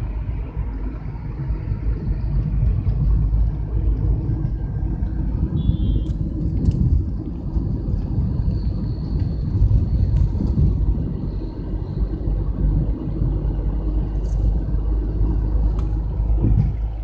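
Steady low road and engine rumble inside the cabin of a Tata Tiago hatchback driving at speed, heard with a newly fitted under-bonnet insulation pad damping the engine noise.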